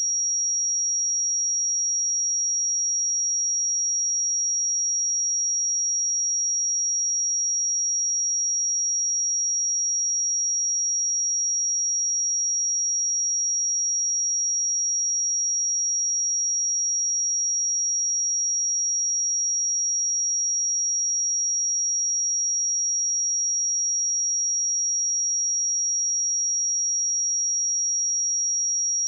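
A pure 5671 Hz sine-wave test tone, a single steady high-pitched note held without change.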